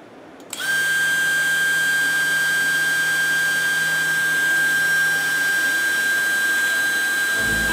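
Small DC spindle motor of a desktop CNC router switching on about half a second in, then running at a steady high-pitched whine.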